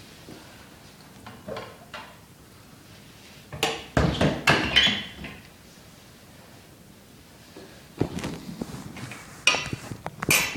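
Several bursts of hard knocks and clattering, like objects being handled and set down: a cluster about four seconds in and another near the end, with a quiet stretch between.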